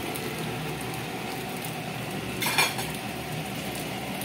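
Fish frying in hot oil in a frying pan, a steady sizzle, with a short clink of metal kitchenware about two and a half seconds in.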